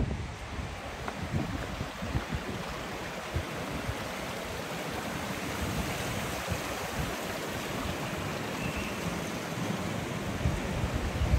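Steady rush of water running in a stone channel, an even hiss, with wind buffeting the microphone in low gusts at the start and again near the end.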